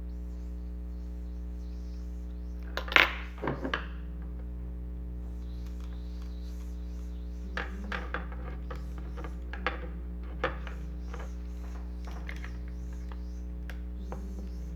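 Small hard clicks and clinks of toy parts being handled: a cluster of knocks about three seconds in, then a few scattered light taps, over a steady low hum.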